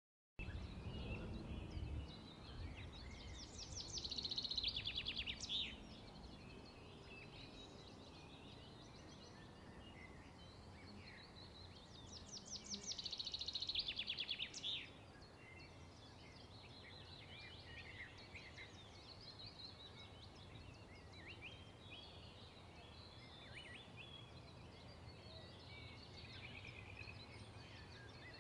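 A songbird singing a fast, high trill about two seconds long, heard twice about nine seconds apart and starting again near the end, with other birds calling faintly throughout over a quiet background of open air.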